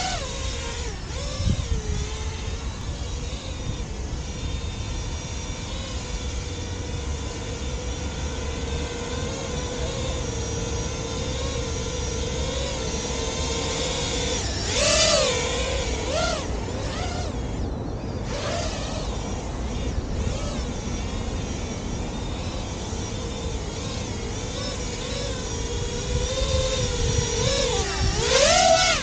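FPV racing quadcopter hovering close by, its motors and propellers giving a steady buzzing whine. The pitch swoops up and back down briefly about halfway through and again, louder, near the end as the drone manoeuvres.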